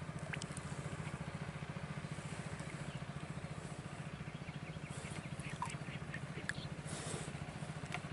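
A small engine running steadily with a faint, low, even throb, with a few faint clicks over it.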